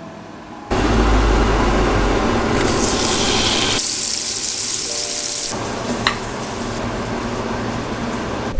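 Kitchen tap water running hard into a sink or pot. It starts suddenly about a second in and gets brighter and hissier partway through.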